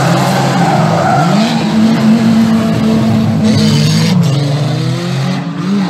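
Several banger racing cars' engines running hard together round the oval track. One engine revs up about a second and a half in, holds, then drops away a little after four seconds, and another rises again near the end.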